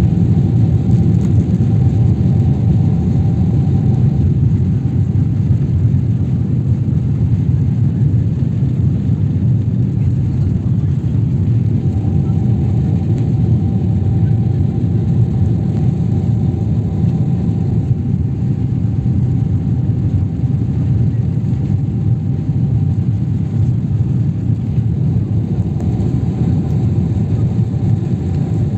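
Airliner cabin noise during takeoff: the engines and rushing air make a loud, steady rumble, with a faint steady whine above it that comes and goes.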